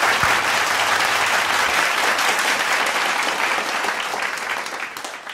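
Church congregation applauding, a dense steady clapping that fades out near the end.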